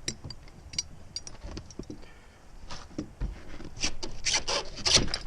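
Handling noise of a metal padlock slide bolt being held and positioned against a wooden shed door: scattered small clicks and scuffs, with a few louder scraping strokes near the end.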